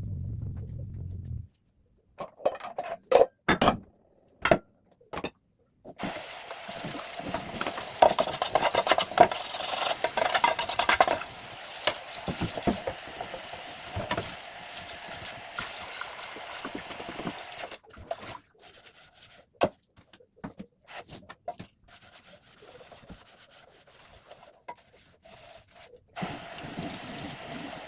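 Household cleaning sounds: a few knocks and clunks, then from about six seconds in, hand scrubbing and rubbing of a surface, loudest around eight to eleven seconds and then lighter and broken up.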